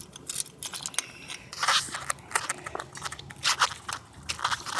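Irregular metallic clicks, scrapes and crunches of pliers working at a brake caliper's rusted, dry slide pin that is seized in its bore.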